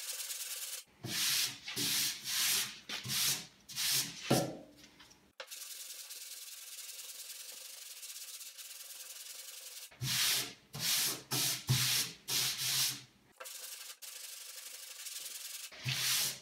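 Longboard sanding block rubbed back and forth over body filler on a car's steel front fender: three runs of rasping strokes, about two a second, with pauses of a few seconds between them. The filler is being cut down until bare metal starts to show through at the high spots.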